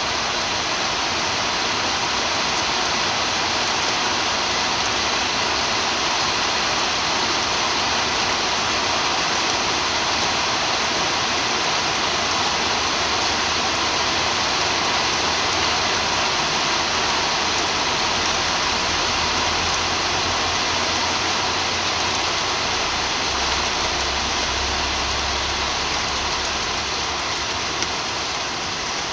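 Heavy rain pouring down onto pavement and a carport roof: a loud, steady hiss. A low rumble swells beneath it about two-thirds of the way through.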